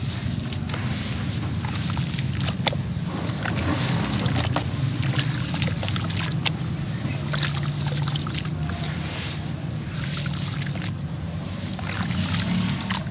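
Hands squeezing and crumbling a soggy, rain-damp sand-cement block in a tub of muddy water: sloshing and splashing with scattered gritty crackles as the wet pieces break apart, over a steady low hum.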